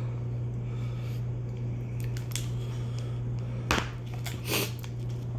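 Cutting and handling sounds as a block of cheese is cut up: a few light clicks, then two louder short cutting or knocking sounds just before and after four seconds in, over a steady low hum.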